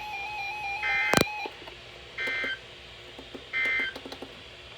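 Emergency Alert System SAME end-of-message signal: three short, warbling two-tone digital data bursts about a second and a half apart, marking the end of the weather warning broadcast. A sharp click comes just after the first burst.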